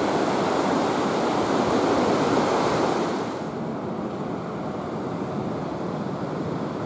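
Katun River rushing through its narrow rocky channel at the Teldykpen rapids: a steady noise of turbulent water. It becomes quieter about three seconds in.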